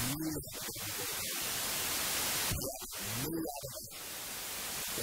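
Only speech: a man preaching in Burmese into a handheld microphone, in short phrases with long pauses, over a steady loud hiss of recording noise.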